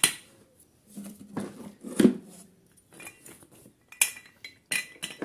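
Clinks and knocks of a loose Briggs & Stratton InStart electric starter being handled against the mower engine, with a sharper knock about two seconds in; the starter has come off because its mounting screws did not hold.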